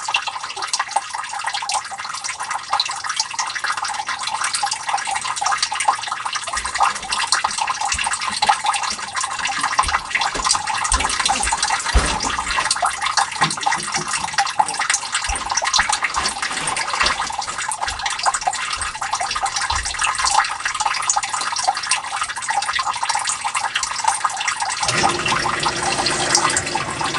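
Groundwater trickling and splashing steadily into a sump pit, a constant hiss of running water. About two seconds before the end a lower, fuller rushing joins in as the new sump pump starts up.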